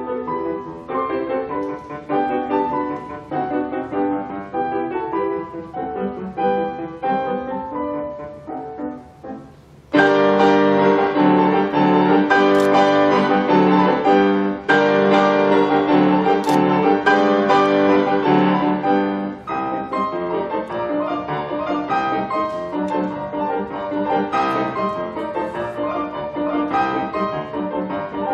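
Fazioli grand piano played four hands by two pianists in classical concert style. A lighter passage of quick separate notes grows quieter, then about ten seconds in a loud passage of full chords enters abruptly and eases somewhat in the second half.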